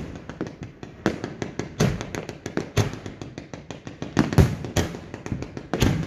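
Fireworks going off in quick succession: a heavy bang about every second amid dense, rapid crackling.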